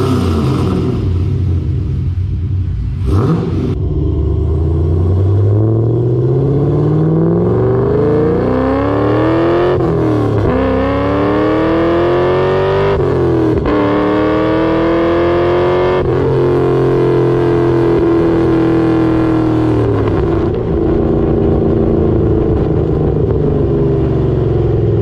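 Straight-piped LS3 V8 of a 5th-gen Camaro on long-tube headers and a true dual exhaust, heard at the tailpipes. It revs briefly at first, then pulls hard under acceleration. Its pitch climbs, drops sharply at gear shifts about 10 and 13.5 seconds in, and then holds steady as the car cruises.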